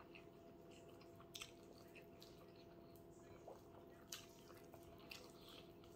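Near silence with faint chewing: a few soft, brief mouth clicks and smacks, irregularly spaced, from a person eating rice and beans, over a low steady hum.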